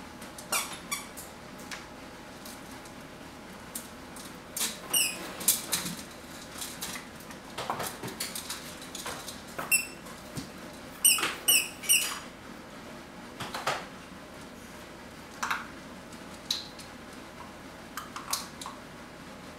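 Vizsla puppies at play on a blanket among toys: scuffling and light knocks, with several quick runs of short, very high-pitched squeaks, mostly around the middle.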